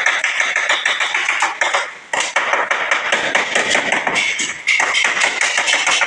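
Rapid metallic tapping, many quick strikes a second with a short break about two seconds in: a hammer working a steel body panel.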